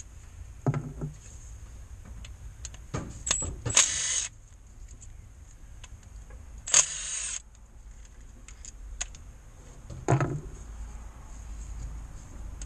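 Cordless impact wrench spinning bolts out of the engine's crankshaft seal housing in two short bursts, about four and seven seconds in. Between the bursts there are sharp metallic clinks and knocks from the tool and bolts.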